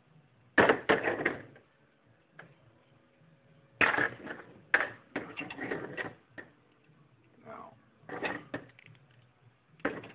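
Metal hand tools from a tap and die set, a die stock and a T-handle tap wrench, clinking and rattling as they are handled and set down on a table, in four or so bursts of sharp clatter, the loudest about a second in and around four to five seconds in.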